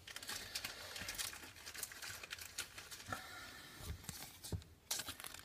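Trading cards being handled and flipped through by hand: soft, irregular rustling and light clicks of card stock sliding against card stock.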